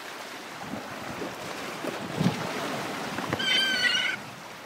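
A gull caught in fishing line gives one high, wavering cry lasting under a second near the end, over sea water washing on rocks. A dull knock comes about two seconds in.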